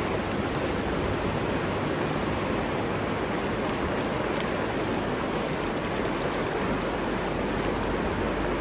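A river flowing, a steady, unbroken rush of water.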